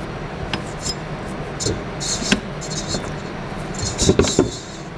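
Metal dough hook clinking and scraping against a stainless-steel stand-mixer bowl as sticky pizza dough is pulled off it by hand, with a quick cluster of clinks near the end, over a low steady hum.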